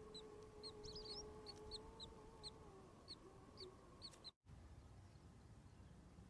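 Faint, rapid high peeping of newly hatched chicks, short notes about two or three a second, cutting off abruptly a little past four seconds in.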